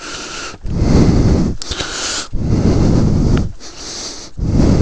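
A person breathing heavily right at the microphone, each breath in and out heard as a loud rush of about a second.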